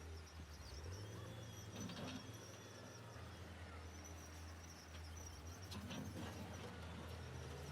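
Diesel engines of heavy earthmoving equipment running low and steady at a distance, with a couple of short clicks or clanks about two and six seconds in, and a thin high insect-like buzz behind.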